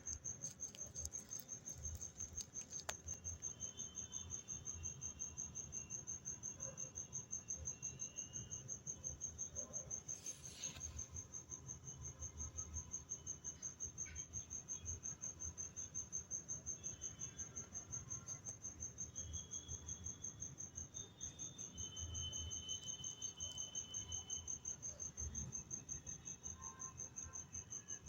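An insect trilling without pause in a high, fast-pulsing tone, with faint bird calls now and then.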